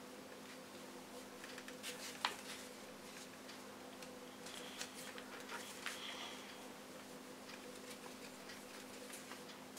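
A sheet of paper being folded and creased by hand: soft rustles and small irregular crisp clicks as the folds are pressed, the sharpest about two seconds in, over a faint steady hum.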